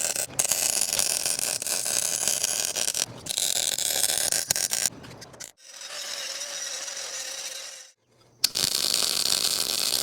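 Metalwork on the skid steer's cracked steel during a weld repair: a loud, harsh, crackling hiss that breaks off and starts again several times. A quieter, smoother stretch comes in the middle, and a sharp click sounds just before the noise resumes near the end.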